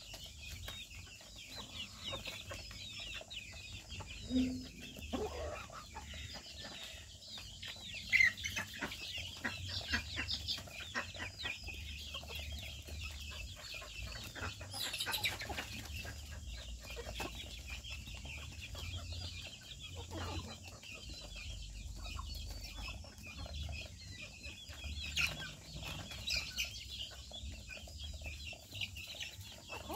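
A flock of chickens clucking now and then while foraging, with a few louder calls, over a constant high chirping.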